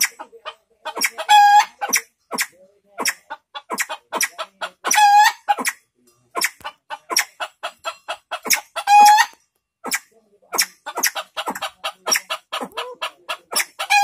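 Caged fowl clucking in quick, short notes, with a louder, higher call about every four seconds.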